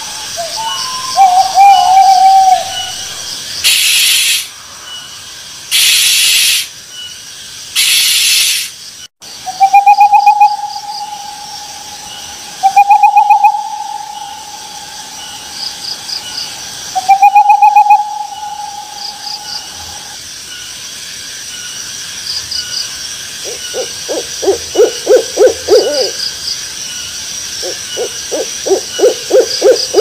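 Owl calls: a short wavering hoot, then three loud harsh bursts about two seconds apart, then three long, steady whistled hoots. Near the end come two rapid trills of short pulsed hoots.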